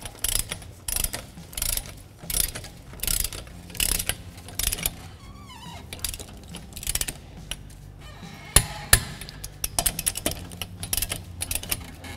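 Ratchet wrench clicking on a lug-nut socket in repeated strokes, about one every 0.7 s, as wheel lug nuts are run down. Later a quieter pause, then a run of sharper single clicks from about two-thirds of the way in.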